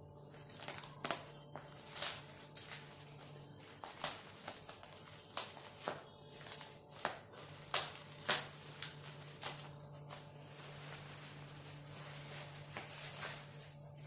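Packaging being pulled and crumpled open by hand, a run of irregular crinkles and crackles.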